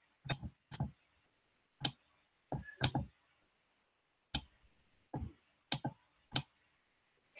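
Computer mouse clicking, about nine short sharp clicks at irregular intervals.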